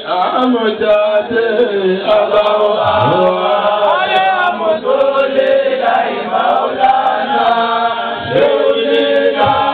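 A group of men chanting a mawlid devotional chant together, many voices in unison, the melody gliding up and down without a break.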